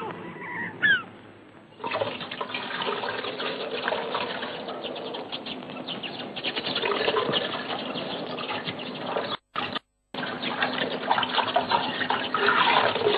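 A gull calls twice with short falling cries, then water splashes and sloshes in a metal washtub as clothes are washed by hand. The sound drops out briefly a little past the middle.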